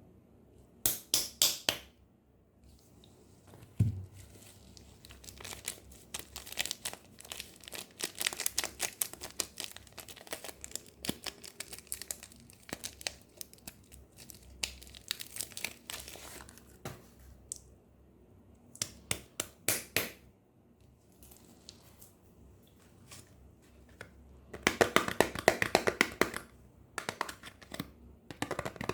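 Soap packaging wrap crinkling and tearing as soap bars are unwrapped by hand, in stop-start bursts of crackling, with the longest and loudest burst near the end.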